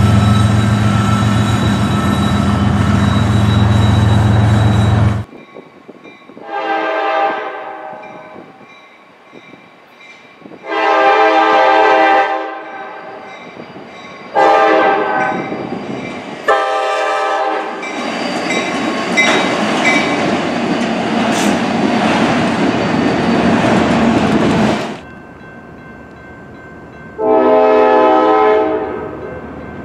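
Freight train diesel locomotives passing a grade crossing with a steady low engine drone, cut off suddenly about five seconds in. A locomotive horn then sounds the grade-crossing signal, two long blasts, a short and a long, and the train passes the crossing with loud rail and engine noise. Near the end a locomotive horn gives one long blast and begins another.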